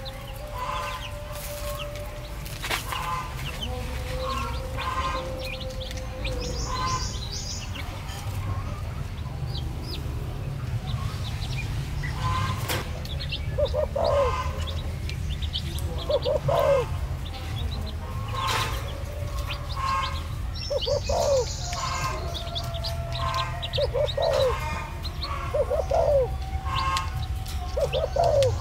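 Baby chicks peeping over and over while they feed, over a steady low hum.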